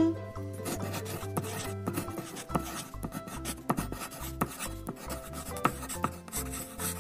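Pencil-on-paper writing sound effect: quick, irregular scratchy strokes, over soft background music with a low bass line.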